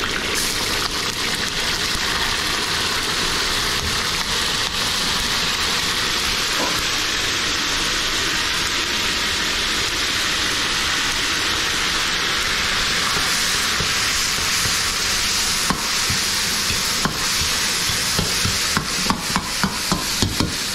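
Food frying in hot oil in a pan: a steady sizzle. Near the end comes a quick run of sharp clanks as a utensil knocks against the pan.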